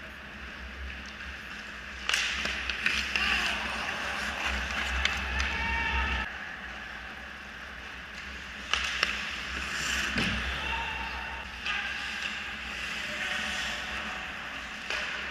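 Ice hockey skates scraping and carving on the ice near the goal, with sharp clacks of sticks on the ice and puck. The scraping swells about two seconds in and again near the middle, as play comes in on the net.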